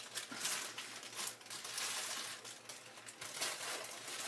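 Plastic bag of frozen waffles crinkling and rustling as it is handled and packed away, with dense crackling throughout.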